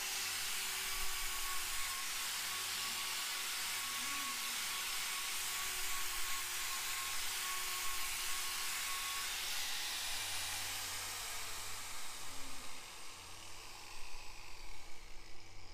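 Electric angle grinder with a hoof-trimming disc, running at speed and grinding down the horn of a cow's claw, with a steady high whine over the grinding noise. The grinding eases off and fades in the last few seconds.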